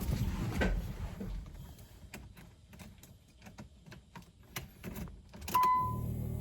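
Light clicks and knocks of keys and car controls being handled in a Nissan 300ZX, then about five and a half seconds in a short electronic beep followed by a steady low hum as the ignition is switched on.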